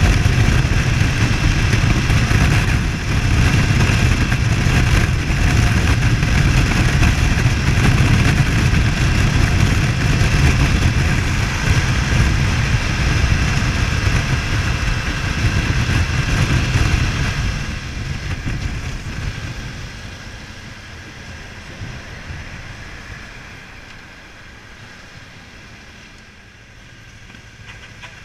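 Rush of wind and engine of a 2012 BMW F800GS parallel-twin motorcycle ridden at highway speed. The sound dies down steadily from about two-thirds of the way in as the bike slows almost to a stop, leaving a much quieter engine running.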